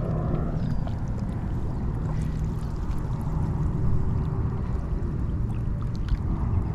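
Shallow lake water sloshing around an angler's waders, over a steady low rumble.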